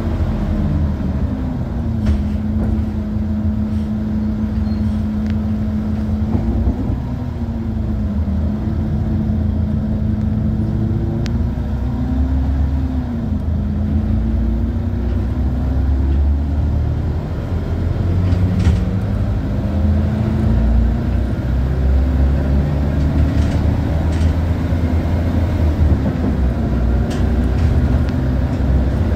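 Inside a ZAZ city bus under way: a steady low rumble with a droning tone that dips and rises several times as the bus slows and speeds up, and a few short rattles.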